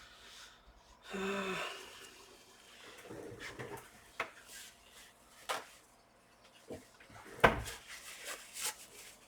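Handling noise on a workbench: rubbing and a few sharp knocks and clicks as laptop parts and tools are moved and set down, the loudest knock about seven seconds in. About a second in there is a brief tonal hum.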